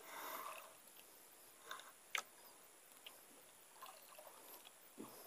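Near silence with a few faint clicks and knocks, the sharpest one about two seconds in.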